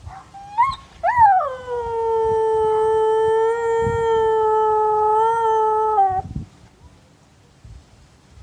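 Siberian husky howling: a brief rising yelp, then one long howl that starts high, drops and holds an even pitch for about five seconds before sliding down and stopping about six seconds in.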